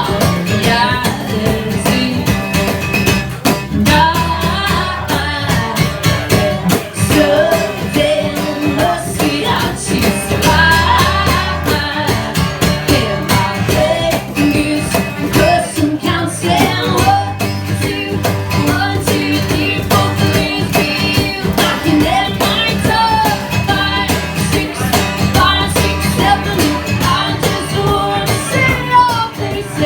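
Live band music: a pop-rock song played with guitar, bass and drums, with sung vocals over it.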